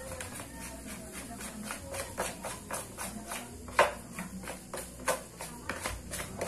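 Hand kneading and squashing soft flour dough in a plastic basin: a run of wet slaps and knocks against the basin, about three to four a second, with one sharper knock a bit past halfway.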